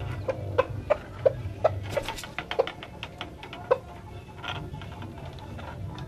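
Chicken clucking: a quick run of short clucks, about three a second, then a pause and one more cluck.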